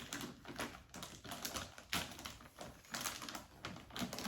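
Irregular crackling and rustling of plastic packaging being handled around vacuum-compressed throw pillows.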